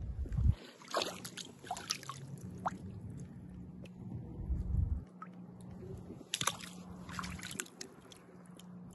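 Water sloshing and splashing as a hand handles stones in a shallow creek, with sharp clicks and splashes in two clusters, about a second in and again around six seconds in.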